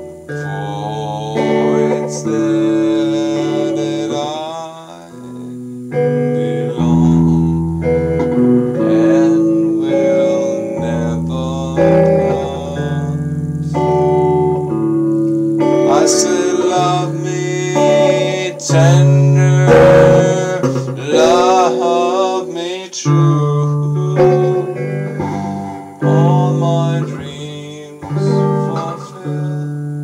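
A man singing while playing a guitar, with sustained chords under a wavering voice.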